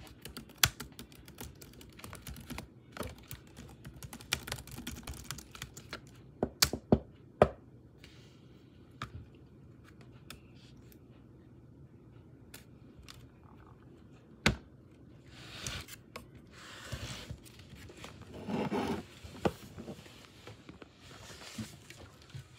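Keys tapping on a Chromebook laptop keyboard in irregular clicks, a few of them louder. In the second half there are a few seconds of rustling.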